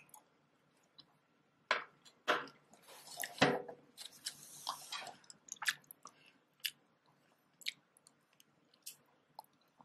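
Close-miked biting and chewing of fresh strawberries: separate wet, squishy clicks and smacks, with a louder stretch of noise about three to five seconds in.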